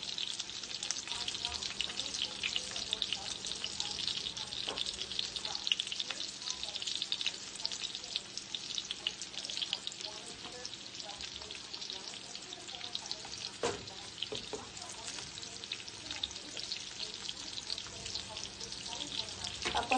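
Chicken pieces shallow-frying in hot oil in a skillet: a steady sizzle with dense fine crackling, and two light knocks.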